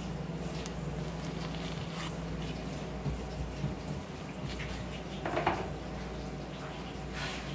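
Knife cutting and scraping along an olive flounder's bones as a fillet is freed from the skeleton: soft, wet scrapes and ticks, with a louder scrape about five and a half seconds in, over a steady low hum.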